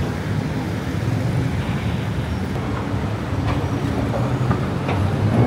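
Road traffic noise: a steady rumble of passing vehicles, with a few faint ticks.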